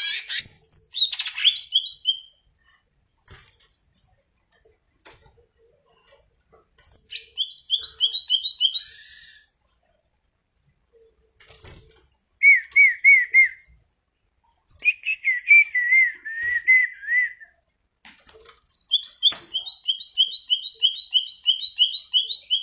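Green leafbird (cucak ijo) singing in five separate phrases of quick repeated notes: high chattering runs at the start, near the middle and through the last few seconds, with two lower, warbling trills between them.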